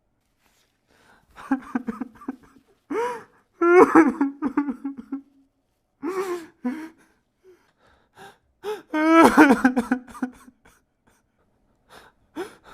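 A person crying hard: repeated bursts of sobbing cries that bend up and down in pitch, broken by short pauses, starting about a second in.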